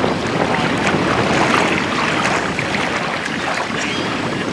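Gusty wind buffeting the microphone: a steady rushing noise with no clear tone in it.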